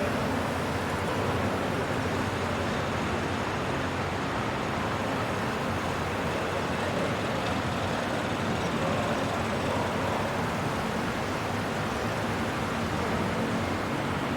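Steady rush of road traffic noise, even throughout, with no distinct events standing out.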